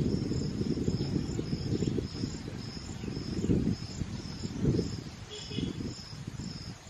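An insect chirping steadily, short high-pitched chirps about three times a second, over the low rumble of wind on the microphone.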